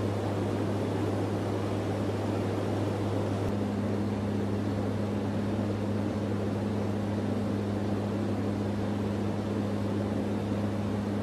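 Steady drone of a KC-130J Hercules tanker's turboprop engines and propellers inside the cargo hold: a constant low hum under a broad rushing noise. About three and a half seconds in, a second, higher hum grows stronger.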